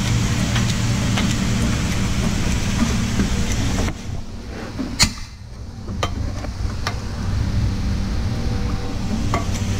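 Steady low mechanical hum that dips for about two seconds midway, with a few sharp metallic clicks from a homemade bearing press's screw and handle being worked by hand, the loudest about halfway through.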